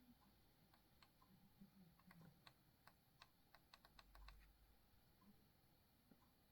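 Faint clicks of buttons being pressed: a few scattered clicks, then a quick run of them in the middle, with a faint low thump partway through the run.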